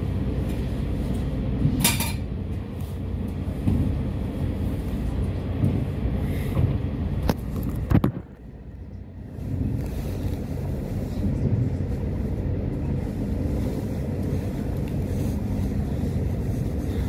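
Train running with a steady low rumble and a few sharp clanks. A loud clank comes about eight seconds in, followed by about two seconds of quieter rumble before it picks up again.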